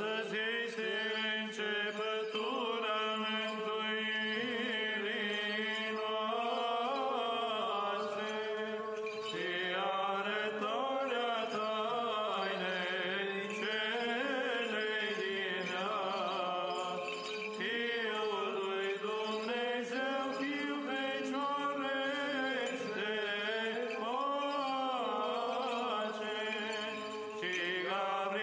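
Background music of chanted singing: voices moving slowly in pitch over a steady held drone note.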